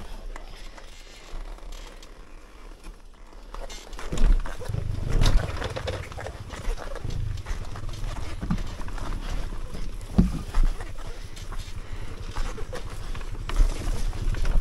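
Off-road enduro motorcycle engine running, getting louder about four seconds in and holding a steady low note, with a few knocks along the way.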